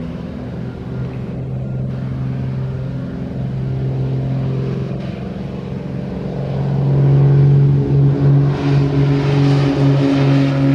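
Small propeller aircraft's piston engines running with a steady drone, growing louder about two-thirds of the way through as the throttle comes up or the plane draws closer.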